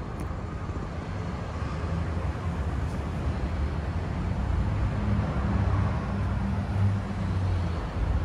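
Honda CBR600RR inline-four engine idling through an Arrow aftermarket silencer: a steady low exhaust rumble that grows louder over the second half.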